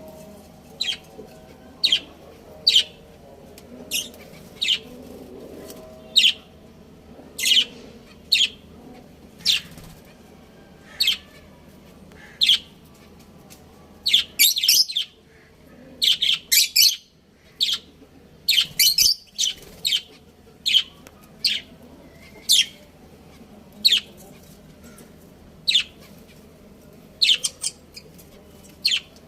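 Budgerigars chirping: short, sharp high chirps about once a second, with a quick flurry of several in a row around the middle.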